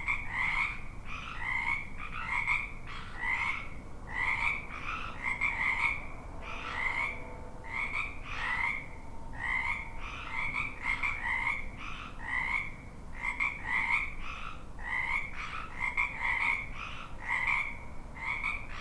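A chorus of frogs croaking: short calls repeated and overlapping, about two a second, over a low background rumble.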